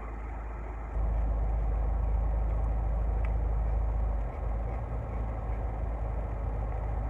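Low, steady rumble of an idling vehicle engine heard from inside a parked car. It grows louder about a second in and eases back down a few seconds later.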